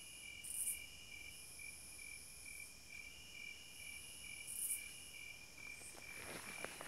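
Faint, steady chirping of crickets: a high trill pulsing evenly several times a second, with a few faint rustles near the end.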